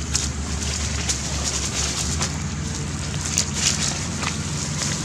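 Steady outdoor background noise with a low rumble and scattered small crackles and clicks, such as dry leaves or handling make; no monkey calls stand out.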